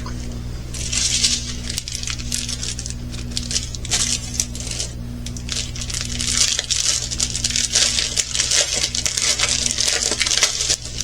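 Plastic packaging of a diamond painting kit crinkling as it is handled, in uneven bursts with small clicks.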